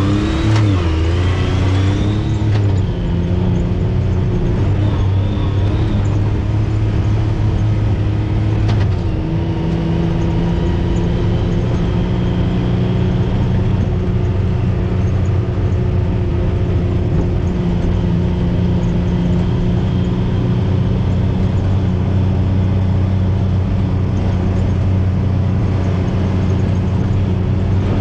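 Side-by-side UTV engine driving on a trail: it revs up at the start, then runs at a steady drone, its pitch shifting slightly about nine seconds in.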